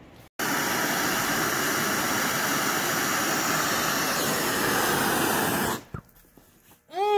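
Hose-fed gas torch flame running with a steady hiss while a half-inch copper pipe joint is heated and soldered. It stops about six seconds in.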